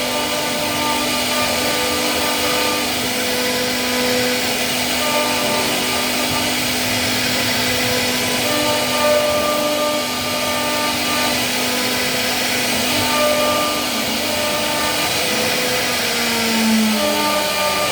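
CNC wood router running and carving wood: a steady, loud motor whine over a broad cutting noise, with tones that shift as the cut moves. Near the end a tone falls in pitch.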